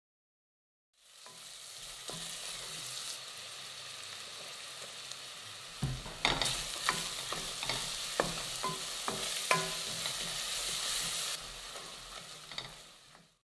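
Wooden pestle pounding and grinding a wet chutney in a mortar. A steady scraping hiss runs throughout, and from about six seconds in it is joined by irregular knocks of the pestle against the mortar.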